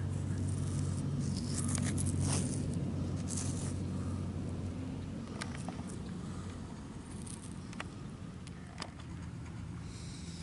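Scattered short scrapes and crunches of gravel and sand being handled, over a steady low hum.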